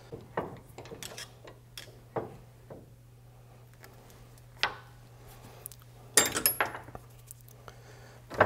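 Steel collared insert and flat-blade screwdriver clinking against each other and a steel bench vise as a rubber bushing is worked off the collar: scattered light clicks, then a quick run of taps about six seconds in as the parts are set down.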